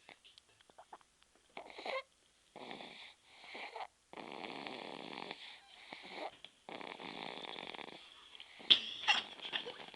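Snoring: about six rough, noisy breaths a half second to over a second long, separated by short pauses, followed near the end by a few sharp clicks or snorts.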